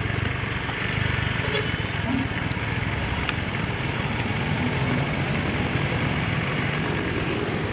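Engine idling steadily with a low, even hum, typical of a motor scooter left running.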